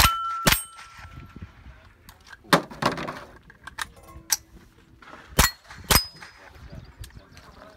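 Rifle shots at steel plate targets, fired in three pairs a few seconds apart, with the struck steel ringing in a clear tone after some of the hits.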